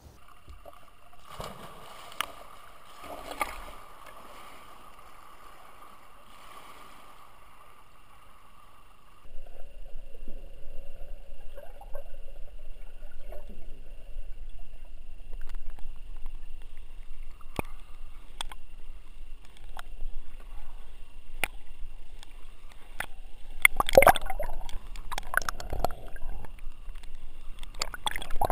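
Muffled underwater sound of a swimming pool picked up by a submerged camera: a low rumble of moving water with scattered sharp clicks and gurgles, and louder splashing bursts near the end. For the first nine seconds there is only a faint steady whine, then the water noise comes in suddenly.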